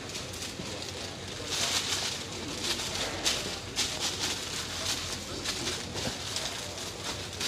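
Sheet of white paper rustling and crinkling in short bursts as it is folded and pressed around a packed tray, over a steady low hum.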